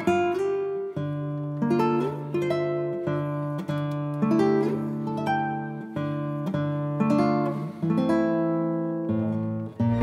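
Background music: acoustic guitar playing a series of plucked and strummed chords, a new chord about every second.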